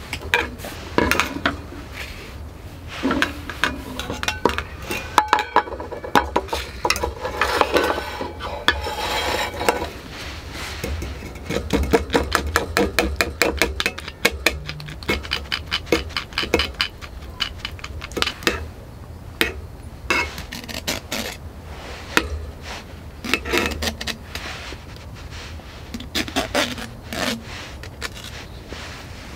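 Stainless steel camp cups and a wire-mesh strainer clinking and scraping as food is handled and pressed in the sieve, with stretches of fast rasping scrapes against the mesh.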